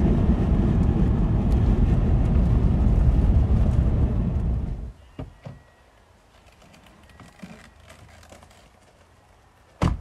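Steady low rumble of a car on the move, cabin road and engine noise, which cuts off suddenly about halfway through. It is followed by quiet with a few faint clicks and one sharp knock near the end.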